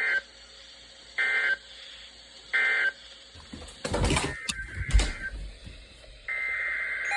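Weather-radio EAS data bursts: the end-of-message code sent as three short, shrill squawks a little over a second apart, marking the close of the special marine warning. About four to five seconds in comes a loud jumble of knocks and low rumble, and near the end a longer data burst starts, the header of the next alert.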